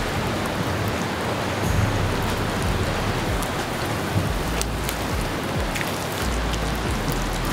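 Fish fillets sizzling in a frying pan over a wood fire: a steady hiss with a few sharp pops and crackles, and a low rumble underneath.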